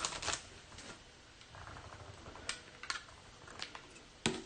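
Faint clicks and light rustling as a thick trading card is handled and worked into a plastic top loader: a few small sharp ticks scattered through, one a little louder near the end.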